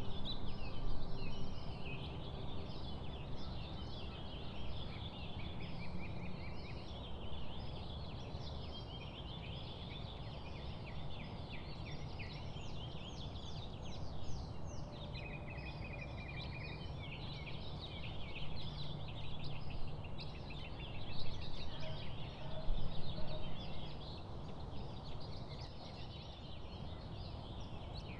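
Many birds chirping and calling at once, a dense chorus of quick, high chirps and trills, over a steady low background noise.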